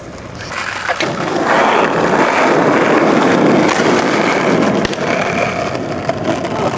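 Skateboard wheels rolling on asphalt, a steady rough rumble, with a couple of sharp knocks.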